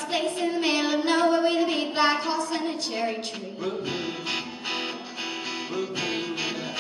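A girl singing live into a microphone, accompanied by a strummed guitar.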